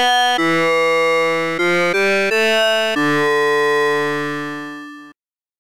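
NHT Synth, a software synthesizer running the expression abs(sin(5x))*sin(a*x) with its low-pass filter off, playing a short phrase of about six single notes in a bright tone with many overtones. The last note is held and fades, then cuts off about five seconds in.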